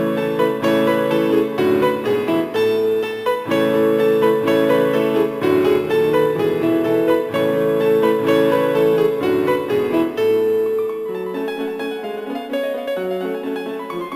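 Background piano music, a steady flow of notes; the low bass notes thin out and it gets a little softer about ten seconds in.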